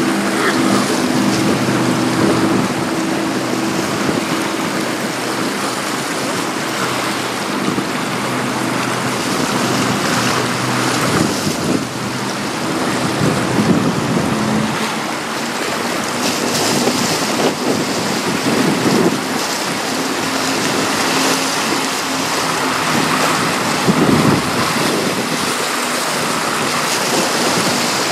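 Wind gusting on the microphone over choppy water lapping, with the low, steady hum of the passing cargo ship's engine in the first several seconds before it fades out.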